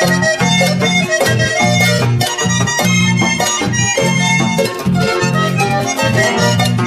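Instrumental folk music led by harp with guitars, over a steady beat in the bass.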